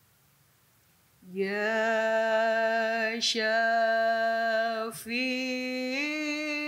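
A woman chanting solo and unaccompanied, holding out the opening 'Ya' of an invocation to the Prophet in long, steady notes. It starts after about a second of near silence, with two brief breaks, and the pitch steps up near the end.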